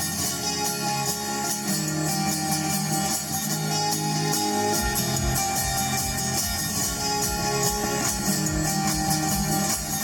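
Live guitar-led music with no singing. A steady low beat joins in about five seconds in.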